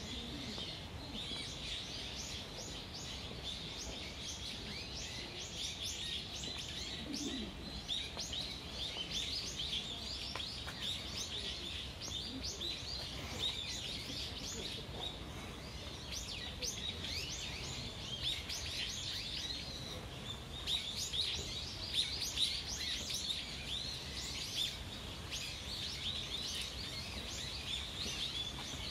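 Many small birds chirping and twittering in dense, rapid, overlapping calls throughout, over a steady low background rumble.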